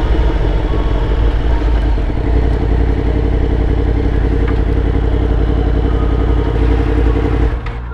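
Yamaha MT-10's crossplane inline-four running steadily through an Akrapovic exhaust at an even, unchanging pitch. It cuts off sharply near the end.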